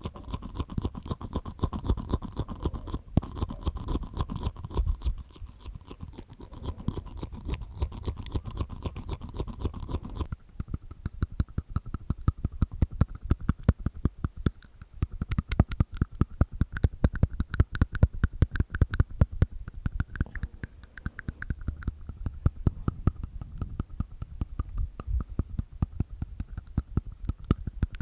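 Mouth sounds made inside the mouth with the tongue and teeth: a dense, continuous run of small clicks, changing to a different click pattern about ten seconds in.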